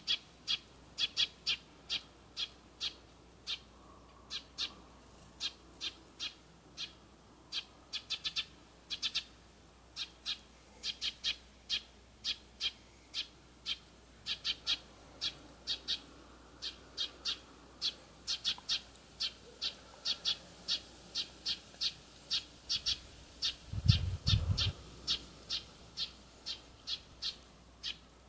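A bird repeating one short, sharp high call about twice a second, sometimes in quick runs of two or three. Near the end comes a brief low thump, the loudest sound.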